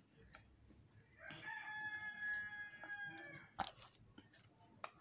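A rooster crowing once, a single held call of about two seconds that sinks a little in pitch at the end, followed by a light click.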